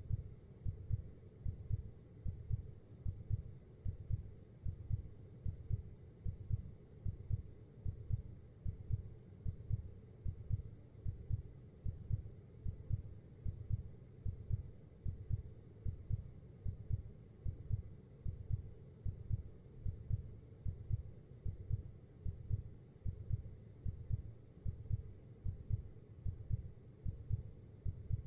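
Heartbeat sound effect: a slow, steady lub-dub pulse of low thuds, a little over one beat a second, evenly repeated throughout.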